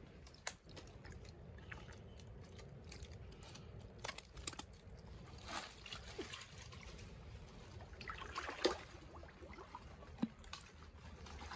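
Hands squelching and sloshing through wet mud and shallow water, with irregular wet clicks and a few short splashes, the sharpest a little past the middle.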